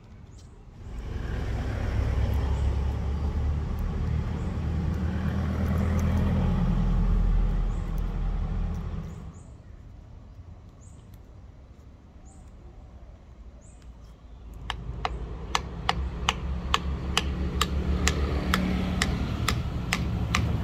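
A workshop power tool's motor runs with a steady hum for about eight seconds and then stops. Near the end a motor hums again under a run of regular sharp ticks, about two to three a second.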